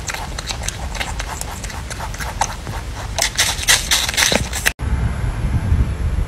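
Grey lop-eared rabbit crunching a raw green apple, a rapid run of crisp bites and chewing crunches that grows louder in the second half. About three-quarters of the way through, the crunching cuts off abruptly and a low rumble of handling noise follows.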